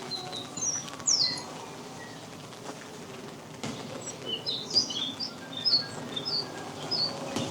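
A small songbird chirping: two quick down-slurred notes about a second in, then a run of short, high chirps about two a second from around four seconds on, over a steady background hiss.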